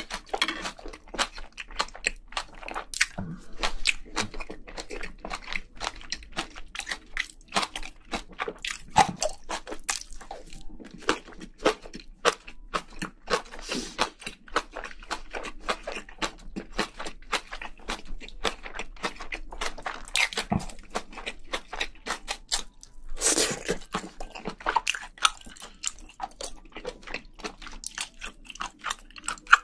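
Close-miked chewing of spicy braised seafood with rice: a continuous run of quick, wet mouth clicks and smacks.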